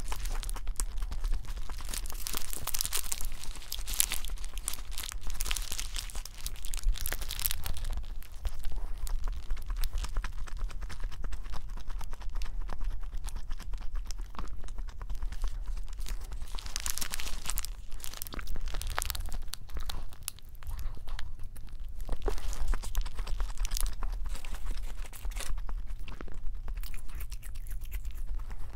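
Paper burger wrapper crinkling and rustling in several separate stretches as it is handled and folded back around the burger, with quieter bites and chewing in between.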